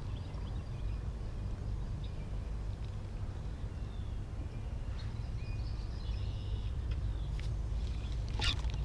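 Outdoor ambience at a pond: a steady low rumble with faint, scattered bird chirps, and a short click near the end.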